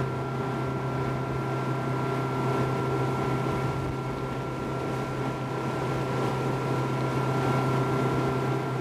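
Mercury Verado 250 supercharged six-cylinder outboard on a Boston Whaler 230 Dauntless center console, running steadily at speed. Its drone is mixed with the rush of water off the hull.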